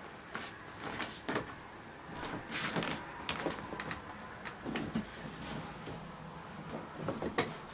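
Irregular knocks, clicks and rustles of a person moving about: handling the camera, stepping back and sitting down in an armchair behind a keyboard.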